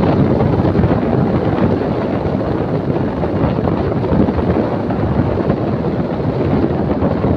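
Steady, loud wind rush buffeting a phone's microphone on a moving motorbike, mixed with the ride's road and engine noise.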